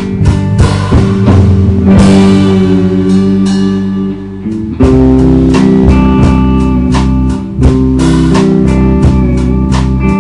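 Instrumental break of a country song: guitar over bass and a drum kit. A cymbal crash about two seconds in rings out and fades, then the full band comes back in strongly near the middle.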